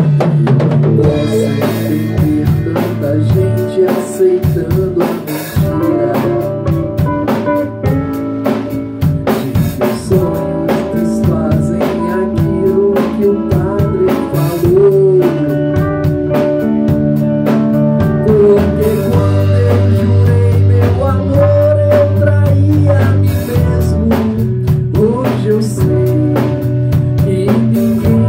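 Music with a drum kit, guitar and singing, playing steadily.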